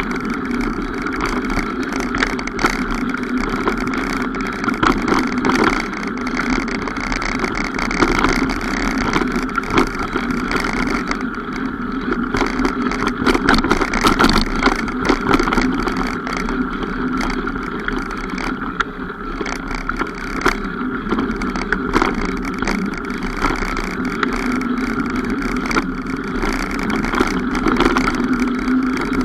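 Mountain bike being ridden along a trail: a steady riding noise with many small clicks and knocks throughout.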